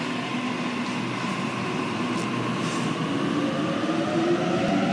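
Sydney Trains Waratah (A set) double-deck electric train pulling away from the platform, its running rumble rising with a motor whine that climbs in pitch from about three seconds in as it gathers speed.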